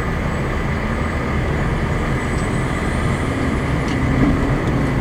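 Fire engine's motor running steadily, heard from inside the cab, with a faint steady tone joining a little after halfway.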